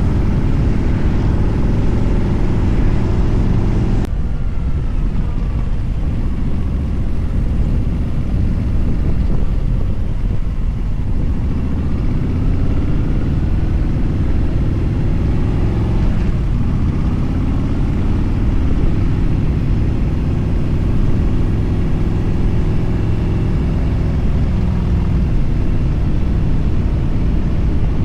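Motorcycle engine at highway speed under heavy wind rumble on the microphone. The wind noise changes abruptly about four seconds in. Around sixteen seconds the engine note dips, then climbs as it speeds up again.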